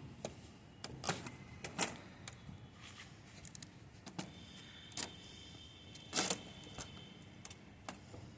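Irregular clicks and knocks of objects being handled, about a dozen spread unevenly, the loudest a double knock about six seconds in.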